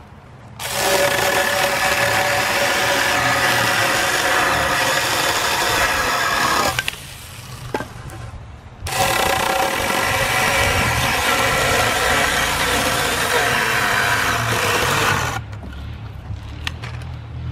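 Small battery-powered saw running as it cuts through a birch log, in two long steady runs with a short pause between them.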